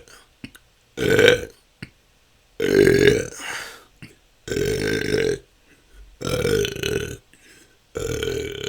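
A person burping naturally, five loud separate belches about one every one and a half to two seconds, each lasting under a second. Faint short clicks sound between them.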